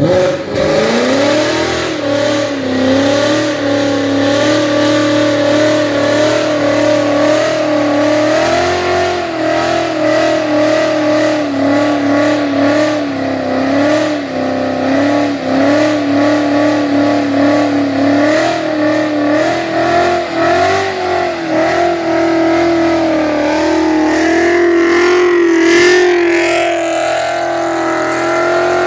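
Roush-supercharged Coyote V8 of a 2014 Mustang started and running at a fast, steady idle, its pitch wavering up and down slightly.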